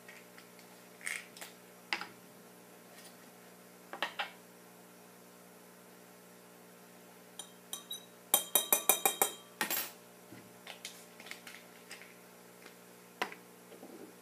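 Glassware being handled: scattered light clinks and knocks of glass beakers and jars, then a quick run of about eight clinks about eight seconds in as a stirring rod rattles against the inside of a glass beaker.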